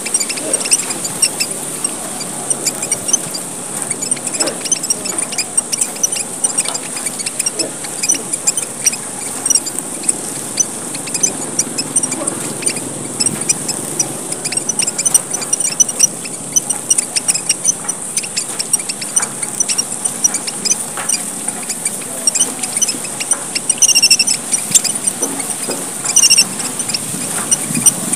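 A flock of emprit merah papua, tiny red finches from Papua, chattering continuously in fast, dense high cheeps over a steady high hiss of calls. A few louder strings of notes stand out near the end.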